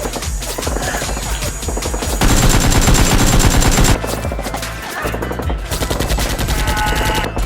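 Rapid machine-gun fire in long bursts, a dense stream of shots, loudest and thickest about two seconds in, then easing after about four seconds.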